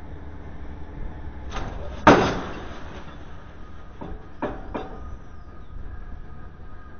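Pile-driving hammer on a rig's mast striking steel: a loud metallic bang about two seconds in with a ringing tail, a lighter knock just before it, and three quicker knocks around four to five seconds in, over a steady low engine rumble.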